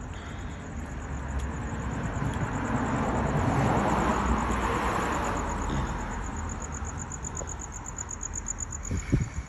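A car passing by on the street, its tyre and engine noise swelling to a peak and fading over several seconds. Near the end come two low thumps, the loudest sounds here.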